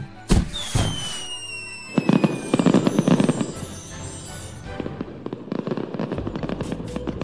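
Cartoon firework sound effect: a sharp bang, a high whistle falling in pitch, then a stretch of crackling as the burst goes off, over background music.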